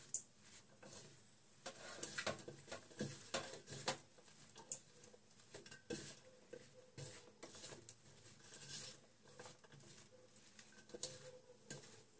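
Hand mixing chopped potatoes and onions with gram flour and spices for pakora batter in a steel bowl: faint, irregular rustling with small clicks.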